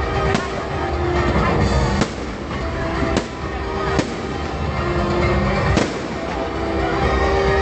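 Fireworks going off: about five sharp bangs a second or two apart, over music playing throughout.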